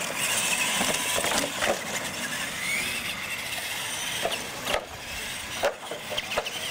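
Radio-controlled monster trucks racing on pavement: motors and tyres running, with a brief rising whine about two and a half seconds in and scattered clicks.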